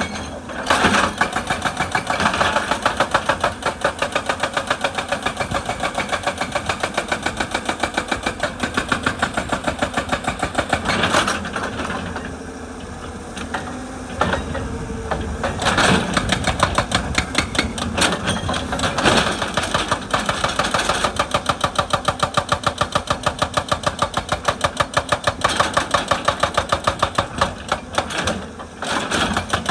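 Excavator-mounted hydraulic rock breaker hammering rock in a fast, even run of blows, over the excavator's running engine. The hammering eases off for a few seconds about twelve seconds in, then resumes.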